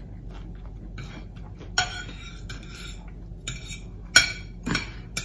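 Metal fork clinking and scraping on a plate: a handful of short, sharp clinks, the sharpest about four seconds in.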